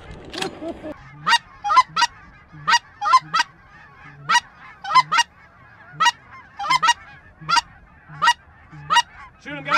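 Canada goose honks, short loud calls repeated about twice a second, often in quick pairs.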